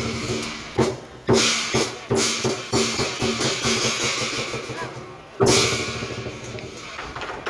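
Lion dance percussion playing: drum beats with cymbal clashes whose ring dies away between strikes, over a ringing gong-like tone. The loudest clash comes about five and a half seconds in.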